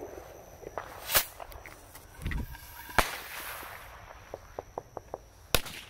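Small consumer firework rockets going off from ground launch tubes: sharp cracks about a second in, at about three seconds and near the end, with a hiss after the second crack and a run of faint ticks before the last.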